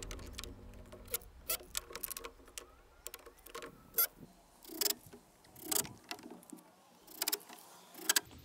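Sharp clicks and knocks of screws and lumber being handled, with a few short bursts as a cordless drill drives screws into a 2x4 wood frame.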